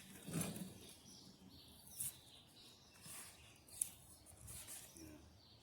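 Faint, scattered handling noises of paper and cardboard sign sheets being moved: soft rustling with a few light clicks, the sharpest a little before the end.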